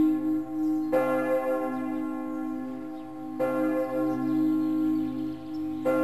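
A deep bell tolling, struck three times about two and a half seconds apart, each strike ringing on and slowly fading over a steady low drone.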